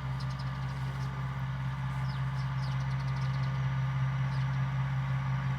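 Engine running at a steady speed, a low even hum, with a few faint high chirps over it.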